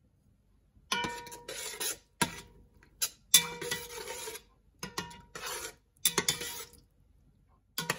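A spoon stirring thick tomato sauce in a stainless steel pot, scraping against the pot's sides and bottom in about five strokes with short pauses between. The strokes start about a second in, with a faint ringing from the pot and a couple of sharp clicks of the spoon against the metal.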